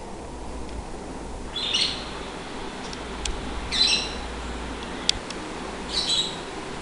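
Persian kitten mewing three times, thin high-pitched squeaks about two seconds apart.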